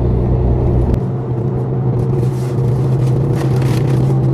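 Car's engine and road noise heard from inside the cabin, a steady low hum. The deepest part of the rumble drops away about a second in.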